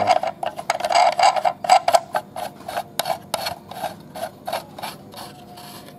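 Black plastic knob on top of an LP-100 aerator air pump twisted by hand to lock down the filter cover, giving a quick run of scraping plastic clicks about four a second that stops about five seconds in.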